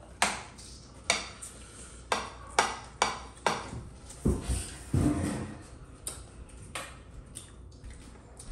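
Dishes and cutlery clinking and knocking, as in a meal. Sharp clinks come about every half second to a second, and two duller, heavier knocks follow about four and five seconds in.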